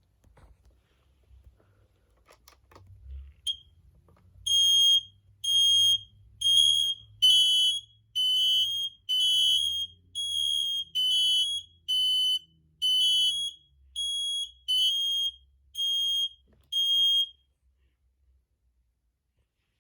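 Smoke alarms sounding on test: loud, high-pitched beeps about once a second, starting about four seconds in and stopping near the end. Some beeps carry two slightly different pitches at once. A few faint clicks and handling knocks come before the beeping.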